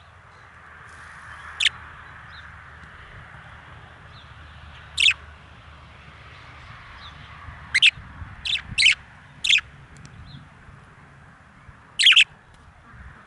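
Male budgerigars giving short, sharp chirping calls, about eight of them, some single and some in quick clusters, over a steady faint hiss.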